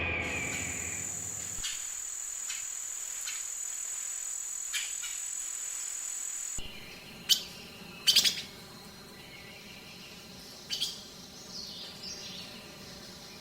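Small birds chirping in woodland, a few short sharp calls in the second half. In the first half a steady high-pitched whine runs without a break, then cuts off suddenly.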